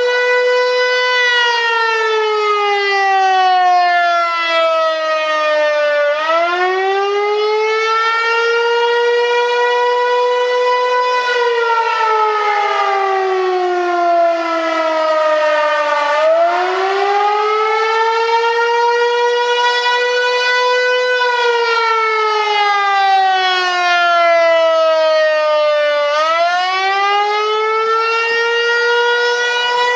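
Federal Signal 508 outdoor warning siren sounding loudly in a wail, its pitch sinking slowly and then climbing back up, repeating about every ten seconds.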